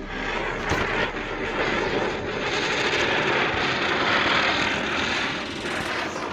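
A ground-spinner firework (chakri) spinning on the ground and spraying sparks: a steady rushing hiss that grows louder toward the middle and eases off a little near the end.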